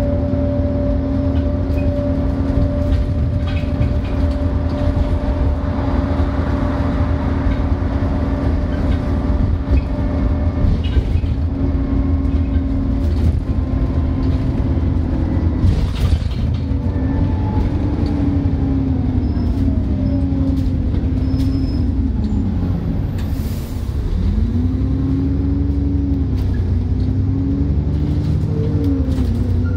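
Alexander Dennis E40D double-decker bus driving, heard from inside the cabin: a deep rumble under a loud whine, which the owner likens to a Voith-sounding differential at speed. The whine holds one pitch for the first half, then rises and falls several times as the bus speeds up and slows.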